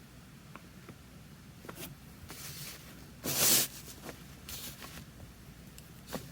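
Calligraphy brush and paper sounds: a few short, soft swishes and light ticks, with one louder swish a little over three seconds in.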